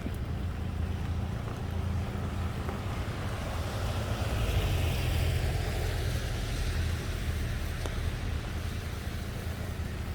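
A vehicle passing by: its noise swells about halfway through and fades again, over a steady low rumble.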